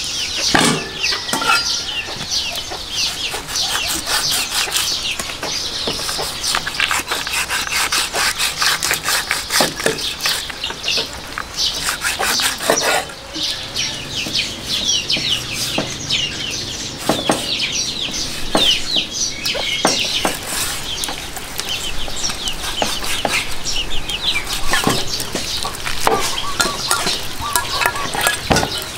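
A meat cleaver chopping through a raw pig's head on a thick wooden chopping block: a dozen or so knocks landing at irregular intervals. Chickens clucking and small birds chirping run underneath.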